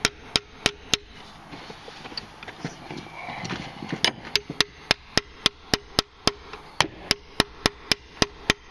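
Hammer tapping a socket held against the starter pinion gear of an Arctic Cat F8 snowmobile, driving the pinion collar back to expose the snap ring. There are a few sharp taps in the first second, then a pause, then a quick, even run of taps at about three to four a second from about four seconds in.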